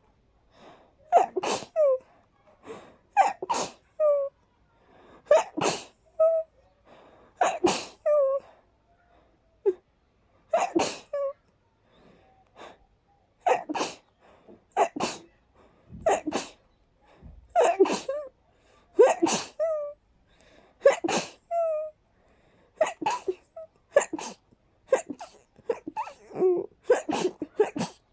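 A person sneezing again and again, airy sneezes coming about every one to two seconds, many led by a short gasping breath in. It is a sneezing fit set off by dust.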